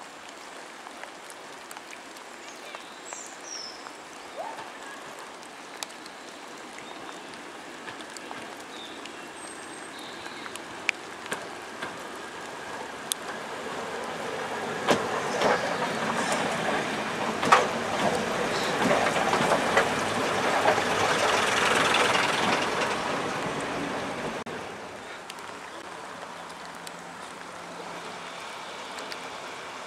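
Class 108 diesel multiple unit approaching and running past, its engine and wheel noise swelling to a loud peak with a few sharp clicks, then dropping away suddenly to a lower steady hum.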